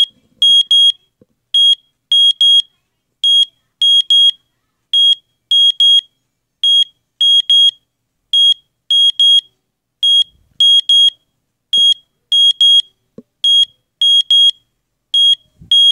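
Traxx digital alarm clock's alarm beeping: short high-pitched electronic beeps in quick groups of one and two, repeating steadily.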